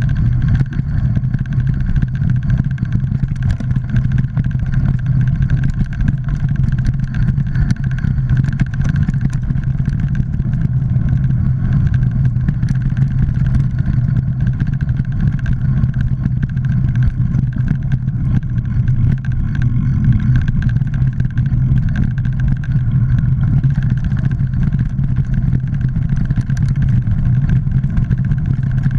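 Mountain bike riding fast along a dirt singletrack, heard from a camera mounted on the rider or bike: a steady, loud rumble from the tyres rolling over the trail, with constant fine rattling of the bike over roots and stones.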